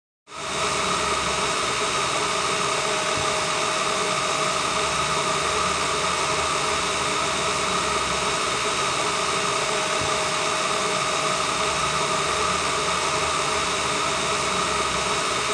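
Steady hissing noise with a faint hum in it, starting abruptly and cutting off suddenly.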